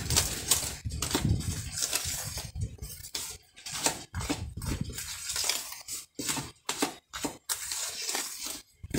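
Hand mixing flour in a plastic bowl: an irregular run of rustling, scraping strokes of fingers and dry flour against the bowl, with short pauses.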